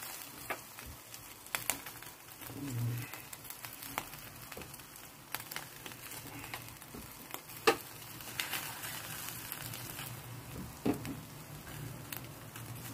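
Chicken fillets sizzling on an electric grill's wire rack, with scattered light clicks as they are brushed with ketchup.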